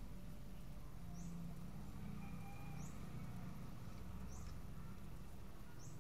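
A bird's short, high chirp repeating about every second and a half, over a low steady hum.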